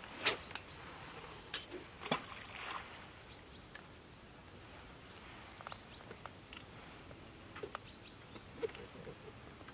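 Quiet riverbank ambience: a steady hiss of running river water, with short high bird chirps here and there. A few sharp clicks come in the first two seconds or so.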